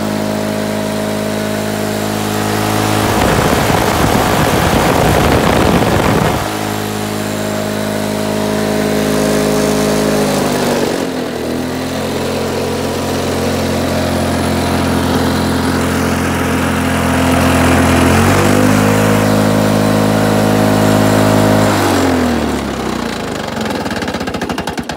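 1973 Lawn-Boy D-600 two-stroke mower engine running steadily, with a loud rushing noise over it for about three seconds starting three seconds in. The engine speed drops about ten seconds in, picks back up around eighteen seconds, then falls away as the engine shuts off near the end.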